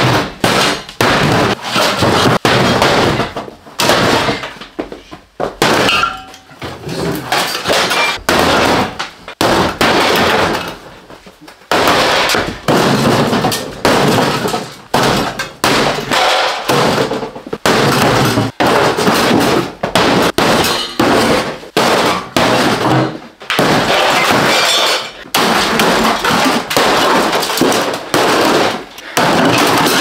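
Sledgehammers repeatedly smashing a sheet-metal furnace cabinet: rapid, almost constant metal bangs and crumpling panels, with brief lulls about five and eleven seconds in.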